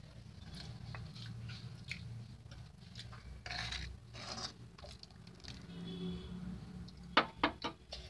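A spoon stirring a thin pea-and-tomato gravy in a pan after salt goes in, with soft wet squishing over a low steady hum. Near the end, about four quick sharp knocks.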